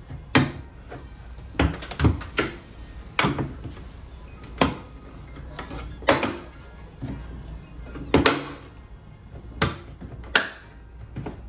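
APR carbon fiber fender duct cover's plastic retaining clips snapping into the car's fender as the panel is pressed home by hand: about ten sharp, brutal-sounding snaps, irregularly spaced.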